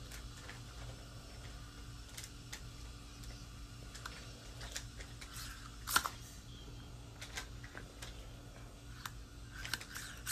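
Scattered faint clicks and scrapes of a metal dental instrument against permanent metal grills as they are worked off the teeth, the sharpest click about six seconds in, over a steady low hum.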